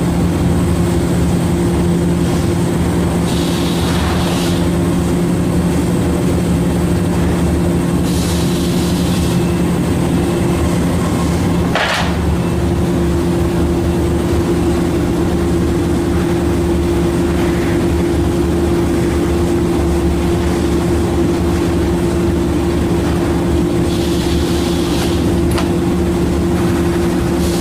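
Steady droning hum of factory machinery at a constant pitch. Three short hisses of about a second each break through it, and there is one sharp click about halfway through.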